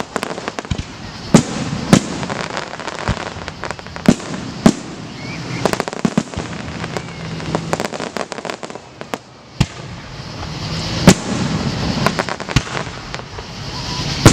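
Aerial firework shells bursting: sharp booms, the loudest about a second and a half, four and a half and eleven seconds in, with runs of quicker crackling pops between them and a brief lull about eight to nine seconds in.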